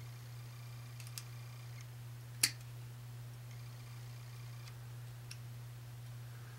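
Needle-nose pliers clicking faintly against enamelled copper magnet wire as one lead is twisted around another, with one sharper click about two and a half seconds in, over a steady low hum.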